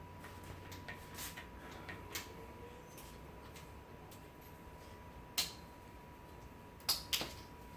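Scattered light clicks and knocks of small bicycle parts being worked by hand, with a sharper click about five seconds in and two more close together near the end.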